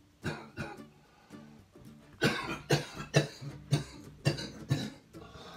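Soft background music, over which a person coughs: once shortly after the start, then a quick run of about six short coughs roughly half a second apart.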